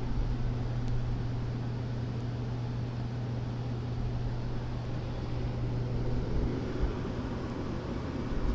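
Furnace running: a steady low hum with an even rush of air. The high-pitched squeal that comes with the burner is not present.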